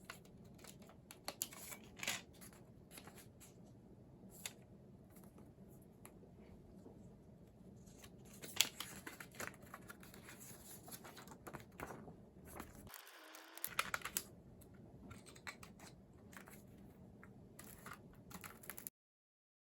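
Faint handling sounds of CD packaging being opened by hand: scattered small clicks and crinkles of plastic wrap and cardboard, with a short rustling tear a little past halfway. The sound stops abruptly near the end.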